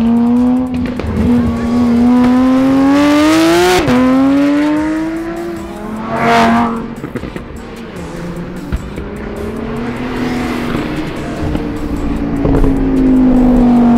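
Car engine accelerating with the pitch climbing, dropping sharply at a gear change about four seconds in and climbing again. A short loud noisy burst comes about halfway through, then the engine runs more steadily and falls before rising again near the end.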